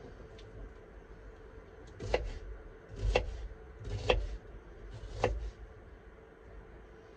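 Kitchen knife cutting through onion on a wooden chopping board: four crunching cuts that end in a knock on the board, about a second apart.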